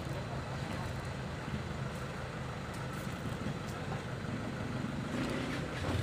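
A motor vehicle's engine idling steadily, a low even hum.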